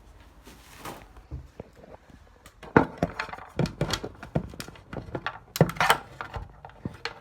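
A quick, irregular run of knocks, thunks and clicks as things are handled and set down, starting about two and a half seconds in.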